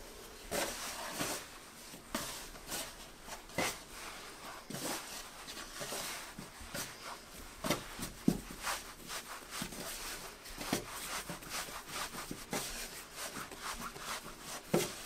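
Hands kneading a soft flour-and-water pie dough on a floured wooden board. The dough is pressed, folded and rubbed against the board, making irregular soft slaps, squishes and rubbing strokes.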